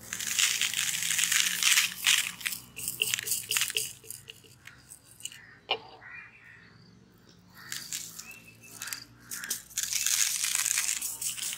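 Candy sprinkles poured from a glass bottle into a plastic tray: a dense, crackly rattle of tiny grains, in two spells with a quieter lull in the middle.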